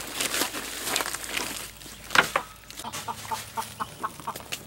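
Chicken clucking in a quick run of short notes in the second half, over rustling and scraping of wood shavings being brushed around by hand in the nesting boxes, with one sharp knock about two seconds in.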